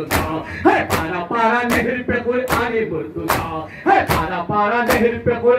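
Mourners chanting a nohay (Shia lament) while beating their chests in matam, the sharp hand slaps falling in a steady beat about every 0.8 seconds under the voices.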